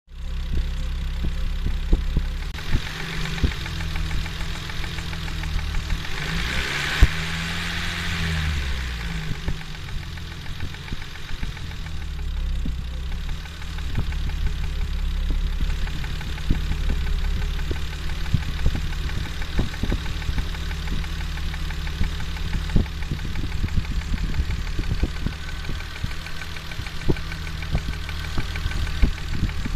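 Toyota 2JZ straight-six engine running, mostly at idle, with a repeated knock from the VVT-i cam coupling. Replacing the coupling with a new one has not cured the knock. The engine is briefly revved up and back down about six to eight seconds in.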